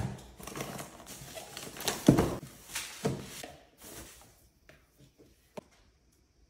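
Cardboard shipping boxes and paper being handled and set down: rustling and a few thumps, the loudest about two seconds in, then nearly quiet apart from a single sharp click.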